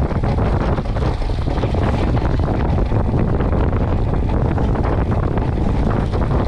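Steady rush of wind buffeting the microphone aboard a Moth sailing dinghy going about 42 km/h, with no motor or other tone in it.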